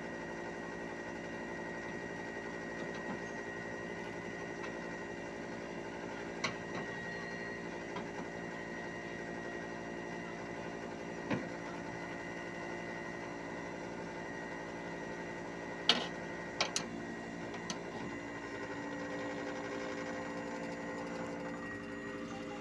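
Hitachi 1-ton split air conditioner outdoor unit running with a steady machine hum made of several fixed tones. A few short clicks or knocks are heard over it, the loudest about two-thirds of the way in.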